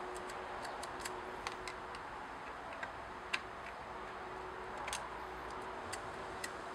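Light, irregular metallic clicks and ticks as a screwdriver tip touches a chainsaw's chain and bar, about a dozen scattered over several seconds, the sharpest a little past the middle, over a faint steady hum.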